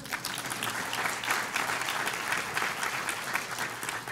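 An audience applauding: many people clapping at once, starting suddenly and keeping up steadily.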